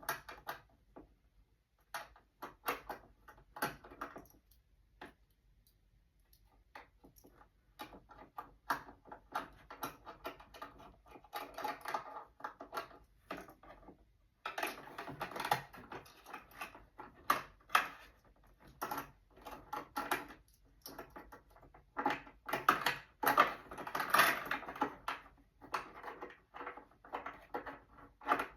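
Irregular mechanical clicks and rattles from a sewing machine being handled and adjusted around its bobbin, in uneven clusters rather than a steady stitching rhythm.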